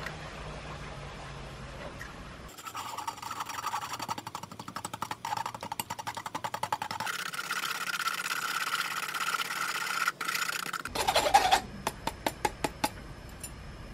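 Chopsticks stirring and rubbing beaten egg through a fine stainless-steel mesh strainer into a glass cup, straining the egg smooth for steamed egg. It starts as fast scraping strokes and then becomes a steady rasp. Near the end there is a louder knock with a short ring, then a quick run of light taps.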